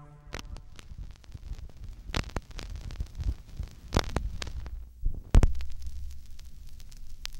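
Low throbbing rumble with scattered clicks and crackles as the electronic track winds down. A few soft thumps come along the way, a louder one about five and a half seconds in, and a low steady hum follows it.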